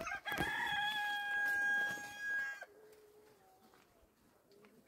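Rooster crowing once, one long steady call of about two seconds, followed by a much fainter, lower call.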